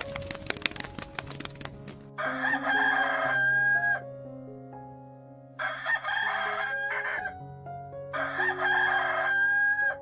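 A rooster crowing three times, each crow lasting about a second and a half to two seconds, over steady background music.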